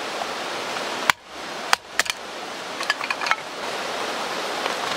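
Steady hiss of rain falling. About a second in it cuts out abruptly and builds back, and a few sharp clicks or taps sound over the next two seconds.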